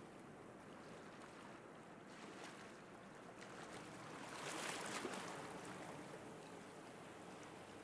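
Faint sea surf washing on a sandy beach, with one wave swelling louder about four and a half seconds in, then falling back.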